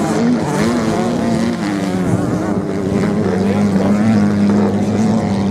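Off-road motorcycle engines running, the note wavering up and down as the throttle is blipped, then holding steadier and louder in the last couple of seconds.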